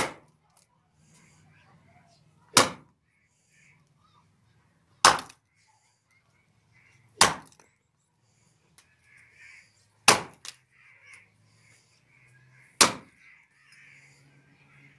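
Hatchet chopping into a rotten log: six sharp blows about two and a half seconds apart, the decayed wood splintering.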